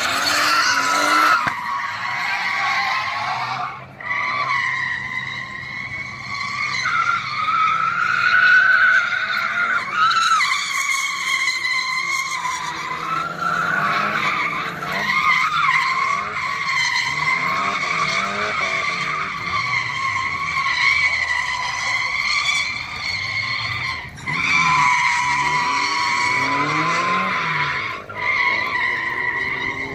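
Tyres squealing almost without a break as a Nissan S15 200SX drifts, its turbocharged SR20DET four-cylinder revving up and down underneath. The squeal cuts out briefly a few times as the car switches direction between corners.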